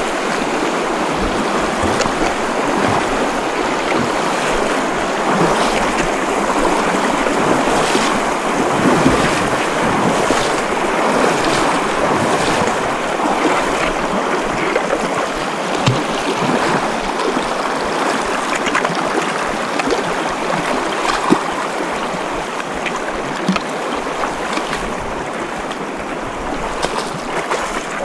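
Mountain creek rushing over rocks close by, a loud, steady water noise, with occasional short sharp knocks.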